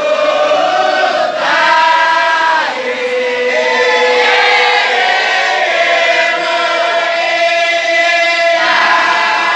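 A group chanting a Sufi wadifa (dhikr) in unison, unaccompanied, on long held notes.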